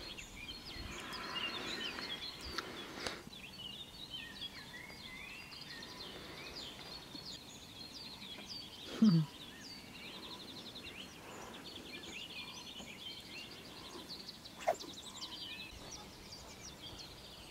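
Songbirds chirping and trilling, many short calls and fast repeated trills overlapping throughout. About nine seconds in a brief, louder low sound dropping in pitch, and a sharp click a few seconds before the end.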